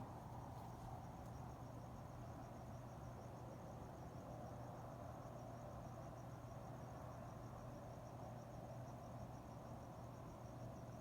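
Crickets chirping, a faint, steady, rapidly pulsing high trill, over a low steady hum and a soft background hiss.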